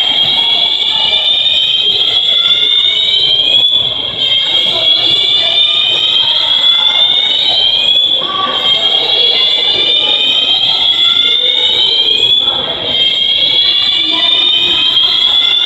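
Loud building fire alarm sounding like a siren: a whooping tone that rises slowly in pitch over about four seconds, drops back and repeats, about four times.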